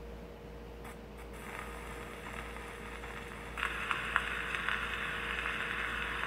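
Steel needle of an acoustic console phonograph running in the lead-in groove of a 78 rpm shellac record: the hiss and crackle of surface noise, with a couple of sharp ticks about a second in as the needle is set down. The hiss grows louder about three and a half seconds in, with a few scattered clicks.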